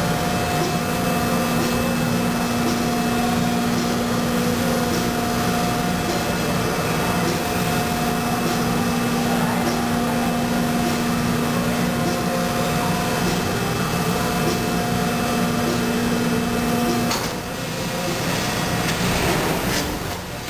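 Injection moulding machine running with its stack mold clamped shut mid-cycle: a steady machine hum with a clear steady tone that stops about three-quarters of the way through, leaving a quieter running noise.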